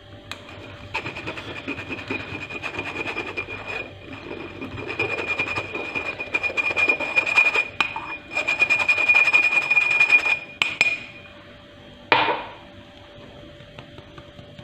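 Flour being sifted through a stainless-steel mesh sieve shaken over a bowl: a fast rasping rattle in spells of a few seconds, with one sharp knock on the sieve about twelve seconds in.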